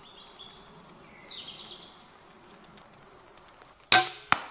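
Crossbow fired: a loud, sudden thwack near the end, followed a moment later by a second sharp crack. Birds chirp faintly before the shot.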